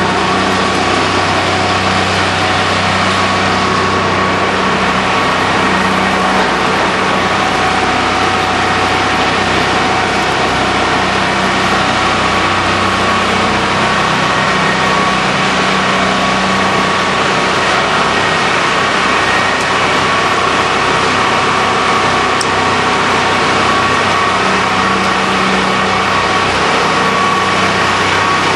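Rotochopper EC-156 horizontal grinder, driven by a 250-hp three-phase electric motor, running steadily: a loud, even machine noise with a constant high whine and a low hum, no pauses or separate impacts.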